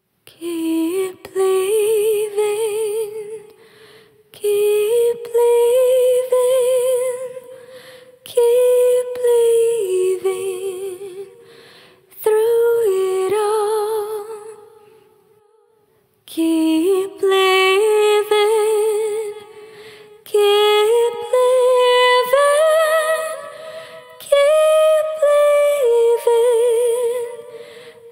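Background music: a slow song sung by a woman, held notes with vibrato in phrases of about four seconds each, with short breaks between them.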